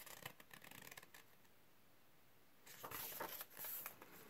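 Faint rustle of a picture book's paper page being turned by hand: light ticks and scraping in the first second, then two short rustles of the page sliding over as it turns about three seconds in.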